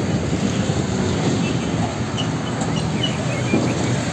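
Hino tanker truck pulling a fuel tank semi-trailer as it drives past, its diesel engine and tyres making a steady low rumble.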